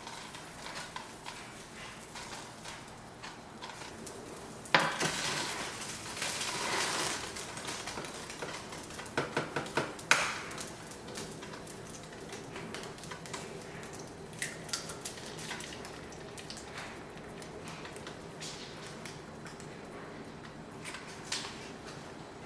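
Dishes and cutlery being handled: scattered clinks and clatter, with a loud knock about five seconds in and a quick run of clinks around ten seconds.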